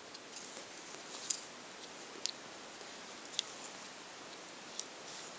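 Victorinox Soldier pocket knife being handled, its metal tools giving about five short, faint clicks a second or so apart.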